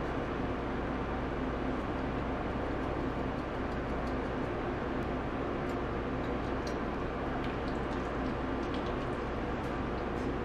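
Steady mechanical hum of a running kitchen appliance or fan, with a few faint light ticks as seasoning is shaken into the pot.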